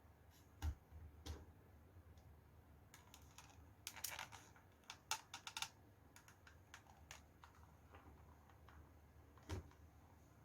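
Faint, scattered clicks and taps of hard parts being handled, with a quick run of them between about three and five and a half seconds in.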